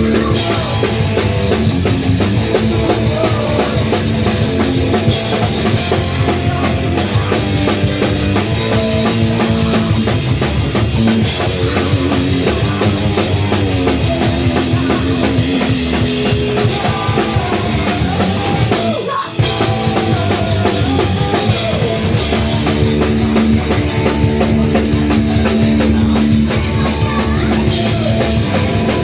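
Live punk rock band playing loud: drum kit, electric guitar and bass. The sound drops out briefly about nineteen seconds in.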